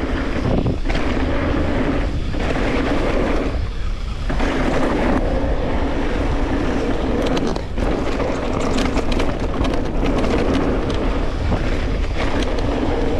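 Wind buffeting the microphone of a camera on a mountain bike riding down a dirt jump line, over a steady rolling rumble and a low hum. The hum drops out briefly a few times, longest a little before the middle.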